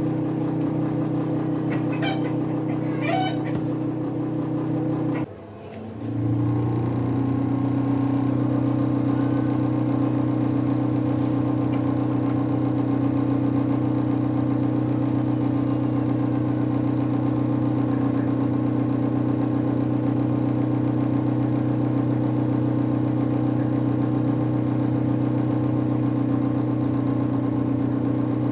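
Electric motor of a homemade dust collector blower running with a steady hum. About five seconds in it cuts out briefly, then comes back up to speed and runs steadily.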